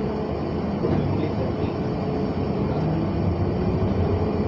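London Underground train running along the track, heard from inside the carriage: a steady rumble with a faint steady hum above it.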